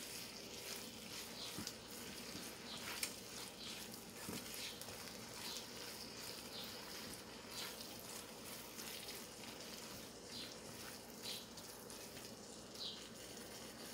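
Chopped spinach and tomato sizzling faintly in a nonstick pan as they are stirred with a wooden spatula, with a few soft scrapes and taps now and then.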